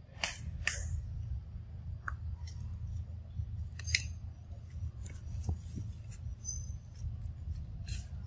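Outdoor forest ambience: a steady low rumble with scattered sharp clicks and snaps, the loudest near the start and at about four and eight seconds in.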